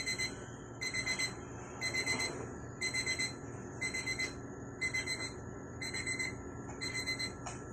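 Electronic alarm clock beeping: short clusters of rapid high beeps, repeating about once a second.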